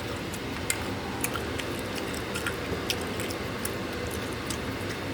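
Someone chewing food, with scattered sharp wet clicks, over a steady low hum.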